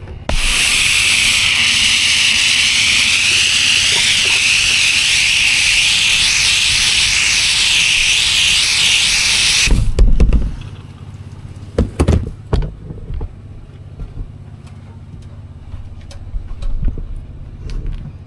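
Pressure washer spraying: a loud, steady high-pressure hiss of water from the wand that starts just after the beginning and cuts off sharply about ten seconds in. The Honda engine runs steadily underneath, and a few knocks and thumps follow once the spray stops.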